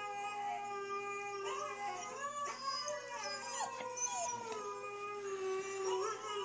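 Siberian husky howling: long howls held on one note, then wavering and gliding up and down, with a second howling voice overlapping in the middle.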